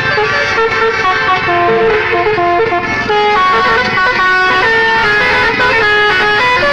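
Bus telolet horns playing a quick melody of held electronic notes, several tones at once, over a low engine rumble.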